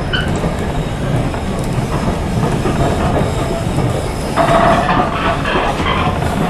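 Heritage railway passenger coach in motion, heard from inside: a steady rumble of wheels running on the rails. About four seconds in, the wheels squeal for a second or so, then the rumble carries on.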